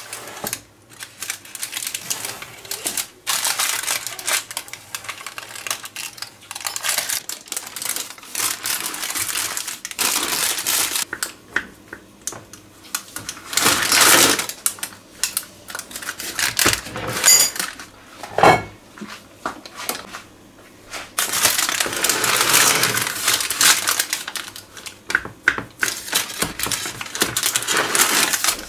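Kitchen food-preparation sounds: irregular crunching, crackling and clattering in a small room, with a couple of sharper knocks midway.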